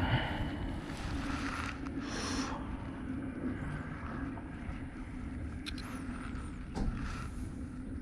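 Wind buffeting the microphone as a steady low rumble, with a brief rustling hiss about two seconds in and a few light clicks later on.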